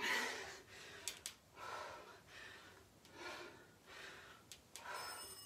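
A woman breathing hard from exercise: about six quick, heavy breaths, roughly one a second, with a couple of light clicks about a second in.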